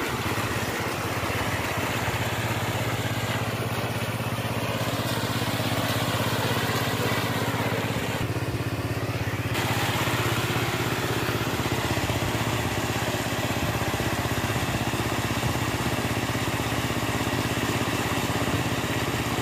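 Water gushing steadily from an irrigation pump's outlet pipe onto the ground, over the steady low drone of the pump's motor.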